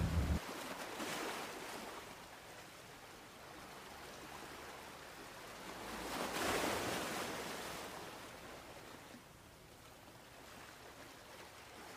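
Quiet wash of wind and sea waves around an open boat, swelling about a second in and again around six seconds, then dying down near the end.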